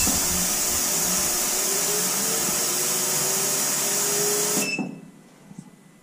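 A 30-litre digital ultrasonic cleaner switched on, its tank of cleaning solution giving a steady hiss from the ultrasonic transducers for about four and a half seconds, then cut off suddenly with a short beep from the control panel.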